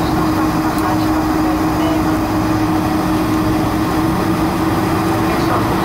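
Steady cabin noise of a Boeing 747-400 rolling out after landing and turning off the runway: its engines running at idle with a steady low hum, over a rumble from the wheels on the concrete.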